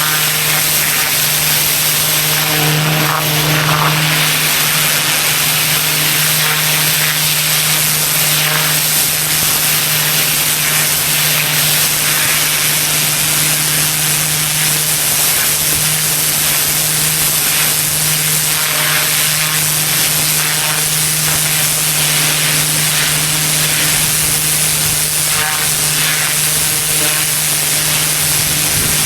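Pressure washer running steadily: a constant engine drone under the loud hiss of the high-pressure water spray.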